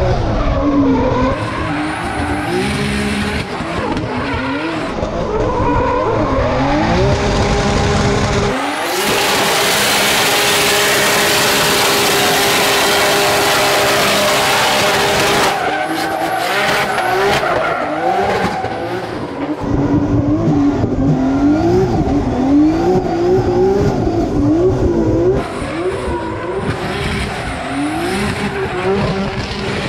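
Nissan S14 Silvia drift car's RB25 NEO turbocharged straight-six revving up and down over and over as it drifts, with tires squealing and spinning. From about 9 to 15 seconds in the engine is held at steady revs under a loud, even rush of spinning-tire noise.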